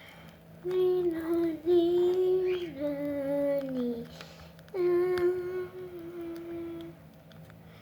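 A young girl humming a wordless tune in long held notes, in two phrases with a short break about four seconds in; the first phrase steps and slides down in pitch at its end.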